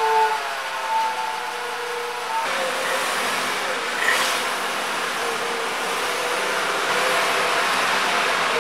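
Volkswagen Jetta Mk5's 2.5-litre five-cylinder engine running at low speed as the car creeps forward up into the garage; the sound grows fuller about two and a half seconds in as it moves off.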